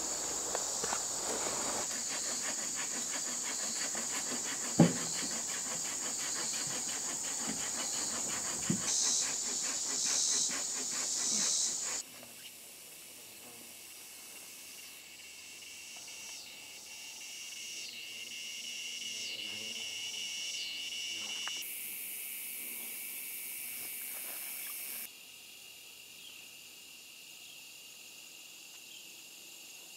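Dense chorus of crickets and other insects, a high steady pulsing trill, with a sharp click about five seconds in and a smaller one near nine seconds. About twelve seconds in it drops abruptly to a quieter, lower steady trill, and a higher hiss joins for a few seconds after the twenty-second mark before cutting off.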